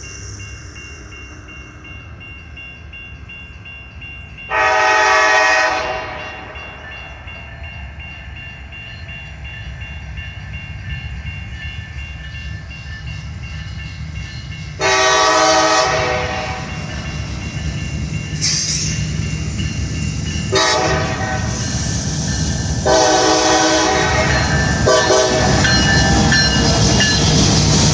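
Third-generation Nathan K5LA five-chime air horn on a CSX EMD SD40-3 diesel locomotive sounding two long blasts, a short one and a final longer one: the long-long-short-long pattern of a grade-crossing warning. Under it the locomotive and its freight train rumble, growing louder toward the end as the train draws near.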